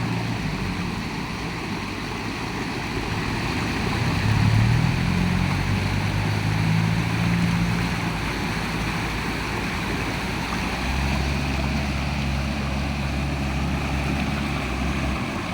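Rushing floodwater pouring steadily from an overflowing canal, with the low hum of vehicle engines passing on the road, one swelling about four seconds in and a deeper one from about eleven seconds.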